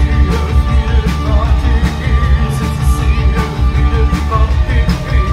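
Post-punk band playing live and loud: electric bass and drums make a heavy low end, with a singer's voice over the band.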